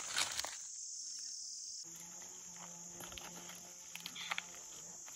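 Steady high-pitched chorus of forest insects, with a few brief knocks near the start and again about four seconds in.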